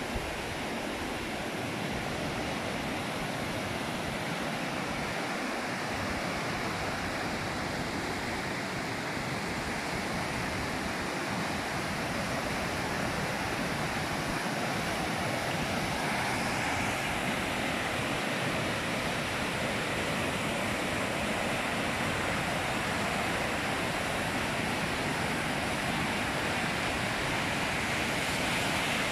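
A swollen, muddy river in flood after heavy rain, its churning rapids making a steady rushing of water that grows a little louder about halfway through.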